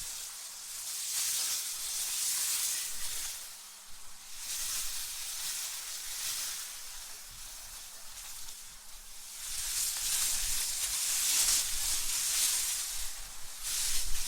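AI-generated wind ambience: a hissing rush of wind that swells and fades in gusts about every few seconds, with a low rumble under the longest gust from about two-thirds of the way in.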